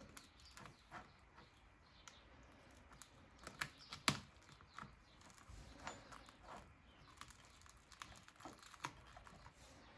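Faint, scattered clicks and taps of small repair tools working at an iPad's Touch ID home button, with one sharper click about four seconds in.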